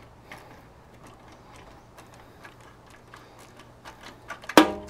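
Faint, irregular clicking of a hand socket ratchet turning through a swivel joint on a motorcycle exhaust nut. One louder, short sound comes near the end.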